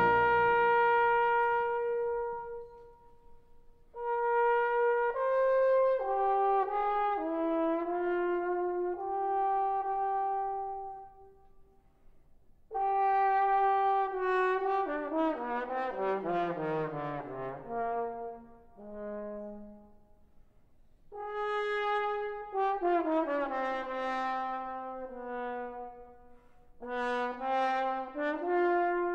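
Brass instruments of a concert wind band playing phrases of several held notes at once, broken by short rests; about halfway through, one phrase runs downward in pitch.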